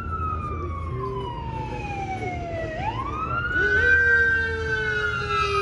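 Emergency vehicle siren wailing: a long falling tone that sweeps quickly back up about three seconds in, then starts falling again, over a low background rumble.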